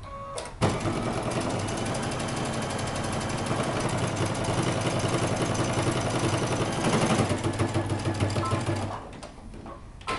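Electric sewing machine stitching at a fast, even rhythm as a sleeve is sewn into the armhole of a knit dress. It starts about half a second in and stops about a second before the end.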